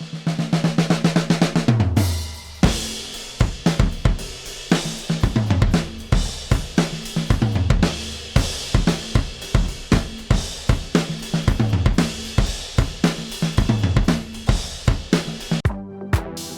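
A drum kit beat with kick, snare, hi-hats and cymbals over a low pitched bass tone. It opens with a quick run of hits falling in pitch, settles into a steady groove about two and a half seconds in, and stops suddenly near the end.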